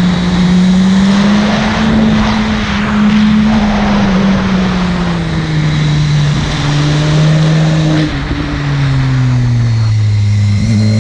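Buell 1125CR's 1125 cc V-twin engine running under way, its note sinking slowly as it backs off, with a short break about eight seconds in. It climbs again just before the end as it pulls away.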